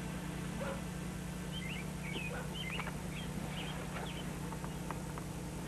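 Sparse short, high animal chirps over a steady low hum.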